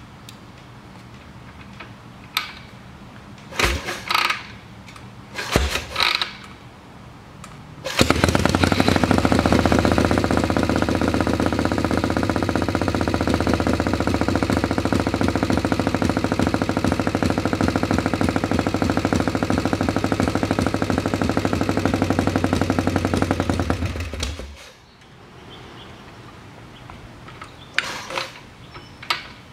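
Kick-started V-twin motorcycle engine with open shotgun slash-cut exhaust pipes. It is kicked over a few times without catching, fires about eight seconds in and runs with rapid firing pulses for about sixteen seconds, then dies suddenly. Near the end it is kicked again. The owner puts the rough running and stalling down to a lean pilot jet in the CV carburettor.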